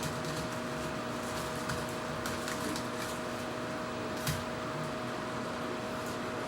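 Steady machine hum, like a small fan or motor on a workbench, with a few faint clicks and taps, the sharpest about four seconds in.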